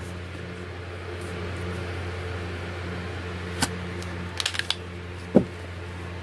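Handling noise from a deck of oracle cards and its cardboard box: a click, a few light ticks and a soft knock as the deck is lifted out and set on edge on the table, over a steady background hum.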